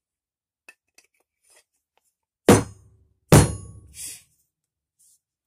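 Two sharp knocks less than a second apart, each with a brief ringing tail, followed by a short hiss or scrape.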